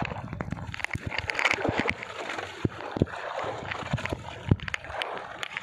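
Sea water sloshing and splashing against the hull of a small outrigger boat, with scattered sharp knocks.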